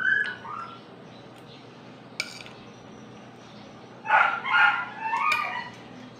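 Animal calls: a short high cry at the start, then a louder run of wavering, whining calls from about four seconds in. A single sharp click comes about two seconds in.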